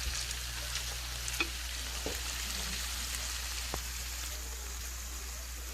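Chopped chicken frying in bacon drippings in a pan: a steady sizzling hiss with a few sharp clicks and pops scattered through it.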